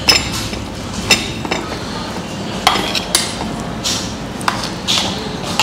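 Metal spoon clinking and scraping against a plate as biryani is mixed and served, about nine irregular sharp clinks over steady room noise.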